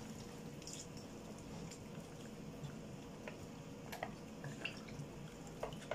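Wooden spatula stirring chunks of meat in water in a large stone-coated pot: soft wet squelching with a few scattered light knocks, over a faint steady hum.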